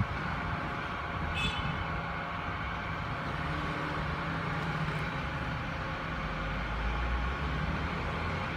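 Steady rumble of road traffic, with a brief high squeak about a second and a half in.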